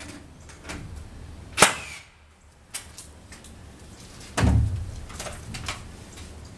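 Pneumatic framing nailer firing once into a roof truss, a sharp crack with a short ring after it. A small click follows, then a heavy thump about four and a half seconds in and a few softer knocks.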